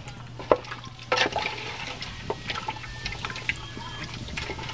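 Duck pieces in broth being stirred with a wooden spoon in an aluminium pot, liquid sloshing, with a few short knocks of the spoon against the pot.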